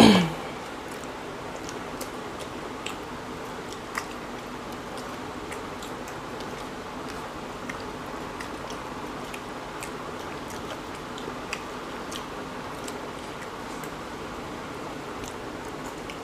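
Eating by hand: chewing, and fingers squishing and mixing rice and chicken curry on plates, with faint scattered clicks over a steady background hiss.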